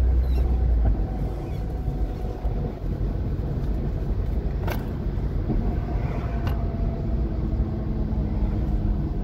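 Alfa Romeo 75 driving along the road, heard from inside the cabin: steady engine and road rumble that eases off about a second in.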